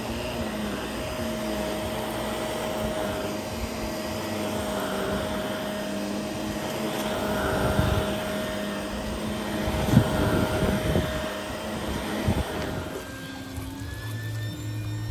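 Shark upright vacuum cleaner running steadily as it is pushed back and forth over a rug, dry-vacuuming it, with a few thumps in the second half. The vacuum sound cuts off suddenly about two seconds before the end.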